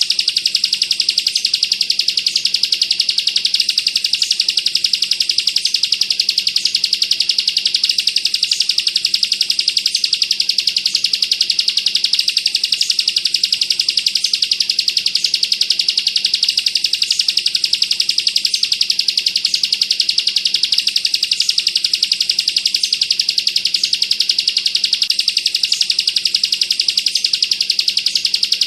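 Bar-winged prinia (ciblek) giving a continuous, very rapid machine-gun-like trill ('bren'), a dense unbroken stream of high notes without pause.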